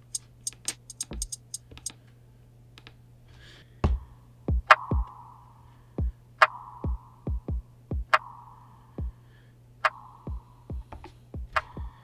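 A trap drum loop played from a sample on the Roland VerseLab MV-1 at 140 BPM: deep kicks that drop in pitch and a snare hit about every 1.7 seconds. Quick ticks are heard in the first couple of seconds, and the loop starts properly about four seconds in after a short gap.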